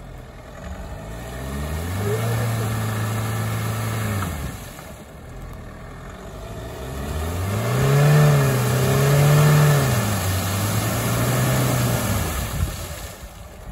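Jeep Compass Trailhawk's engine revving in two long pushes, each climbing and holding before dropping back, the second one higher and louder, as the SUV churns through slushy mud. Near the end its wheels spin and fling mud.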